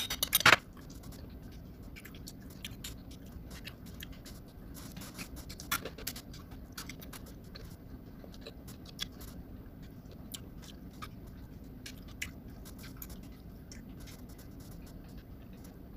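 Eating sounds: soft chewing and crunching of dried fish, with scattered small clicks of fingers and utensils on ceramic plates. A sharper clatter of a bowl against a plate in the first half-second is the loudest sound.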